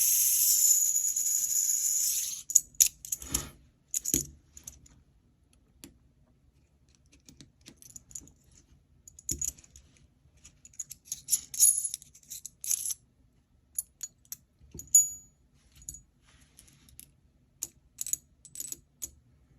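Aluminium Gear Storm crank fidget toy being played with: its gears spin with a steady high-pitched whir that stops about two seconds in, followed by scattered light metallic clicks and clinks, some briefly ringing.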